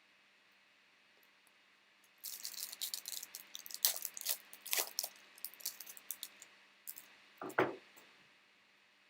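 Foil trading-card pack wrapper being torn open and crinkled: a dense run of sharp crackles for about four seconds, followed by a single soft thump near the end.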